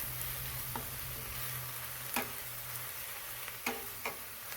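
Chopped onion, garlic and ginger sizzling as they sauté in hot oil in a pan, with about four clicks of the stirring utensil against the pan.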